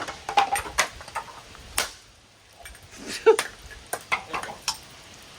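Scattered sharp knocks and clinks of battered ceiling-fan parts and debris, with one louder, briefly ringing clank a little over three seconds in.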